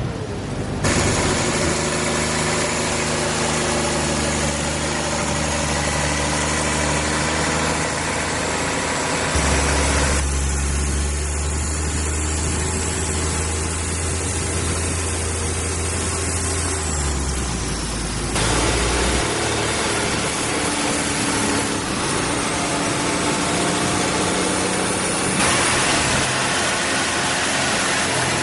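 Long-tail boat's V6 petrol car engine running, loud and steady, with its pitch shifting a few times as the throttle changes.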